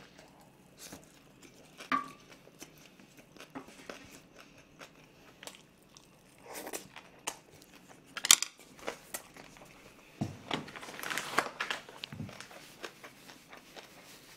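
Close-miked eating sounds: chewing and mouth noises with scattered sharp clicks of chopsticks, the loudest about eight seconds in. From about ten seconds in, a paper tissue rustles and crumples as it wipes the face.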